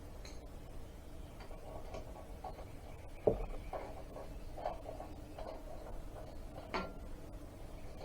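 Tools and metal engine parts being handled: a few scattered knocks and clicks, the loudest about three seconds in and another sharp one near seven seconds, over a low steady background.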